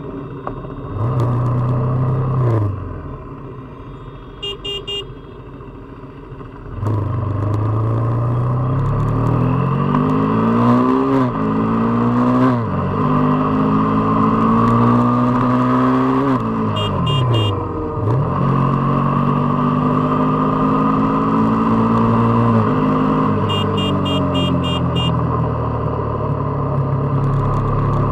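KTM RC 390's single-cylinder engine on a ride: a short rev about a second in, a quieter stretch, then from about seven seconds in a hard pull with the pitch climbing and dropping sharply at each upshift, three times, before settling into a steady run at speed for the rest.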